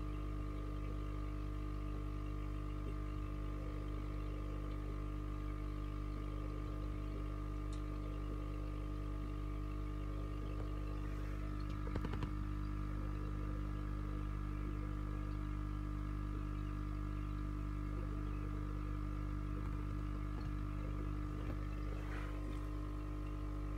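Steady mechanical hum of running aquarium equipment, most likely the tank's filter pump, with a brief knock about halfway through.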